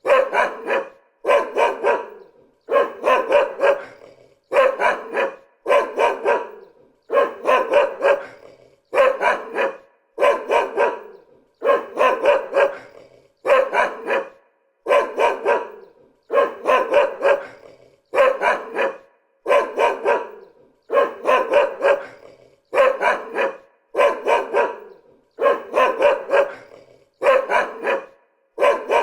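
A dog barking over and over in short runs of two or three quick barks, one run about every second and a half, at an even pace and loudness.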